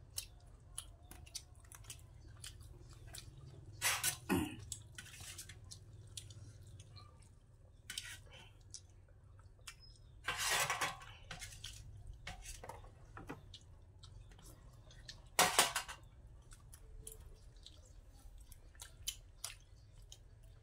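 Close mouth sounds of people eating with their fingers: wet chewing and lip smacking with many small clicks, and three louder mouth noises about four, ten and fifteen seconds in.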